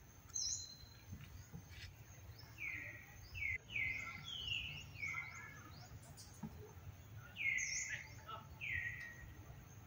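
Wild birds calling: a series of short whistled notes that each slide downward and level off, coming in irregular runs, the loudest about three-quarters of the way through, over a faint steady high tone and a low background rumble.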